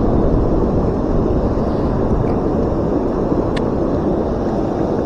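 Steady rush of high, fast river water spilling over a low dam, with wind buffeting the microphone.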